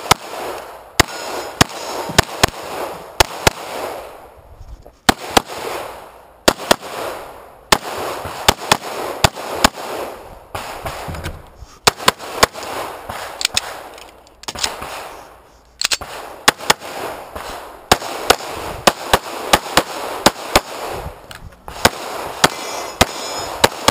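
Rock Island Tac Ultra FS HC 9mm pistol firing fast strings of two to four shots, each followed by a short ringing echo. There are brief breaks of a second or so between strings.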